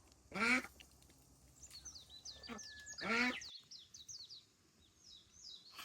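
Two loud, half-second calls from a farm animal, about three seconds apart, over small birds chirping rapidly.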